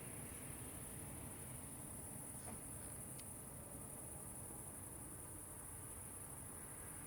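Crickets or bush crickets trilling steadily in a high, unbroken band over a faint low rumble.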